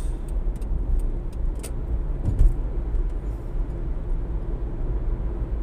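Road and engine noise heard inside a moving car's cabin: a steady low rumble with a few faint ticks.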